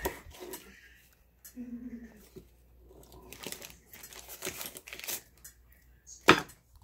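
Kitchen handling noises: crinkling and rustling with scattered light clicks, and one sharp knock about six seconds in.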